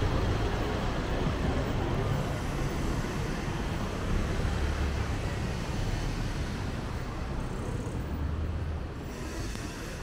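City street traffic noise: a steady wash of passing vehicles, with a low engine rumble that is loudest at the start and slowly eases off.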